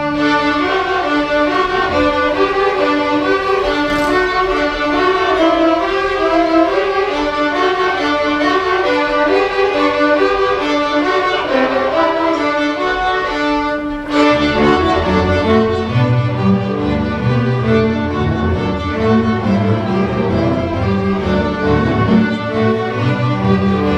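Student string orchestra playing a lively fiddle-style tune, the violins carrying the melody. About halfway through, the lower strings come in underneath.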